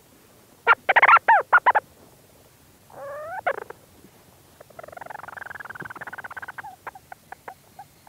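Leach's storm petrel calling close-up from inside its burrow. A loud burst of quick arching notes comes about a second in, then a shorter rising call around three seconds. A long rapid trill of about two seconds follows, breaking into a few separate short clicks near the end.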